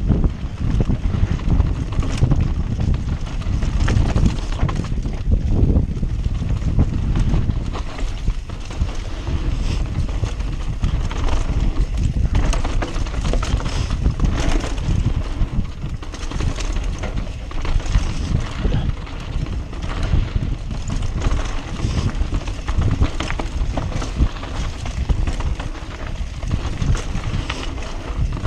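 Mountain bike ridden fast down a rough dirt trail: wind buffeting the action camera's microphone in a constant low rumble, with the bike rattling and knocking over roots and rocks.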